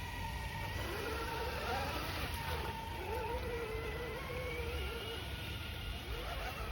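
Electric RC rock crawler's motor and geared drivetrain whining, the pitch wavering up and down with the throttle as it crawls, over a low rumble.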